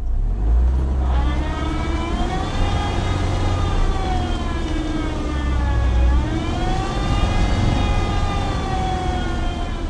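Chevrolet Niva moving in reverse over the engine's low drone, with a loud gear whine from the drivetrain that rises in pitch as it speeds up, dips and rises again about halfway, and falls away near the end as it slows.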